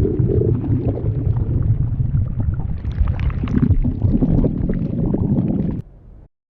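A stomach growling: a continuous run of low, irregular gurgling rumbles that stops abruptly shortly before the end.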